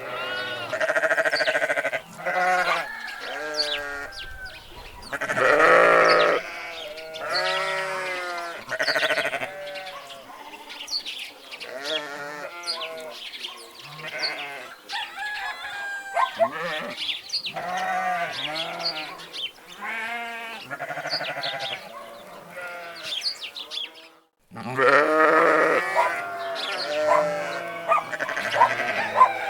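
Sheep or goats bleating repeatedly, many wavering calls overlapping, with a brief cut to silence near the end.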